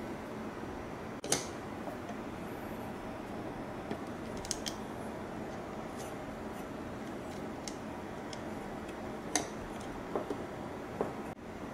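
Small hardware being handled on a carbon-fibre frame plate: a few short sharp clicks and taps as fingers fit a tiny screw and nut, over a steady background hiss.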